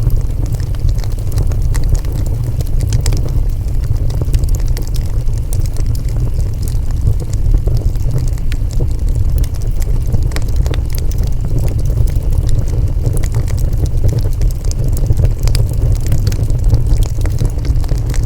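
Wood fire burning, with a steady low rumble under frequent sharp crackles and pops from the burning wood.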